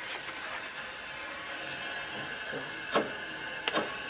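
Steady hiss of a charbroiler's gas burner flames, with two sharp metallic knocks about three seconds in as the burner and grate are handled. The cook finds this burner running too low and suspects it is not getting enough air.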